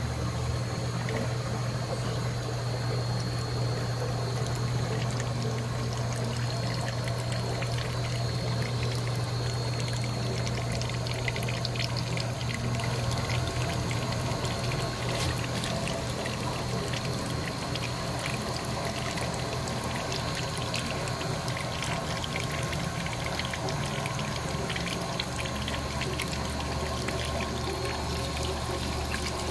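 Water pouring steadily as a water tank is drained, a continuous even rush. A low steady hum runs under it and fades about halfway through.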